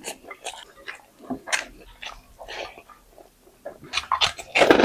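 Someone chewing and biting into spiced chicken close to the microphone: wet mouth smacks and small crunches at an uneven pace, busier and louder near the end.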